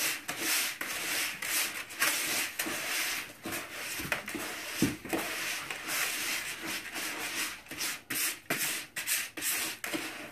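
Gloved hand stirring and squishing wet cooked rice bait in a plastic bucket, rubbing and scraping against the bucket's sides and bottom in a quick, irregular run of strokes.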